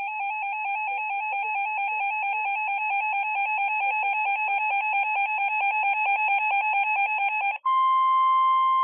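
Weather-radio alert tones: a loud electronic warble stepping rapidly back and forth between two pitches, then, about seven and a half seconds in, a switch to a steady single-pitch alert tone that signals an incoming warning broadcast.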